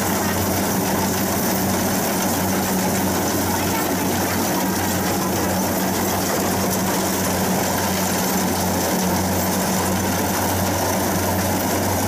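Kubota DC60 combine harvester's diesel engine running steadily while it cuts and threshes rice, a constant low engine hum under a rushing mechanical noise from the cutter and threshing drum.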